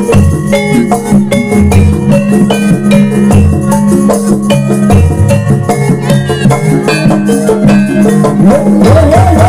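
Live jaranan music from a Javanese percussion ensemble: drums and struck, pitched metal percussion in a fast, steady rhythm over a held low tone. A wavering, gliding tone comes in near the end.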